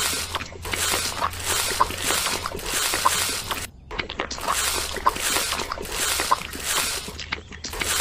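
Small metal trowel scraping and smoothing wet cement mortar on a thin metal sheet, in wet swishing strokes about twice a second, with two short breaks.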